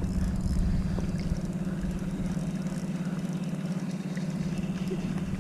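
A steady low motor hum at constant pitch, with faint water sounds.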